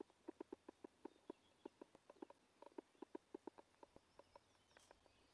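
Faint, quick, irregular clicks of someone walking in a long vinyl coat: steps and the stiff vinyl shifting with each stride, about four clicks a second.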